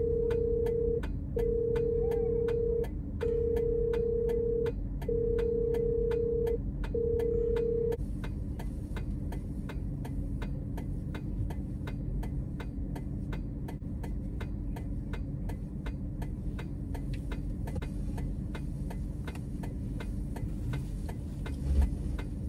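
Inside a vehicle cabin, a steady rapid ticking of an indicator flasher over the low hum of the idling engine. A warning chime sounds in long repeated beeps over the first part and stops about 8 seconds in.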